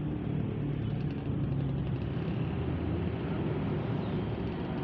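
Bus engine running steadily, a low-pitched sound with no horn blowing.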